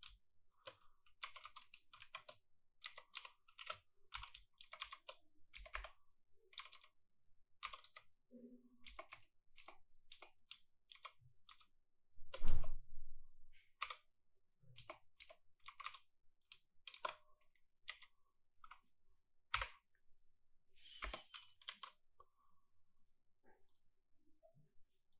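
Typing on a computer keyboard: an irregular run of quick key clicks, with one louder thump about twelve seconds in. The clicks thin out near the end.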